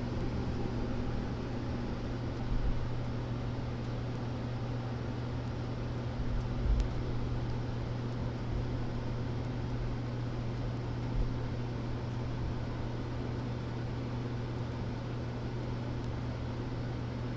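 Furnace blower motor running with a steady low hum and a few light knocks.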